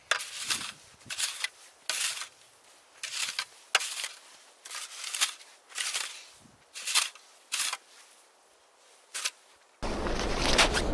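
Plastic snow shovel digging and scraping in snow: a series of short crunching scrapes, about two a second. Near the end a louder, steady rushing noise takes over.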